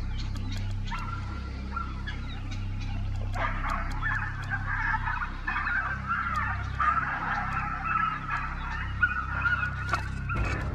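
A rabbit screaming in distress as greyhounds attack it: a wavering high-pitched cry that grows louder about three seconds in and goes on almost without a break, over a low steady hum.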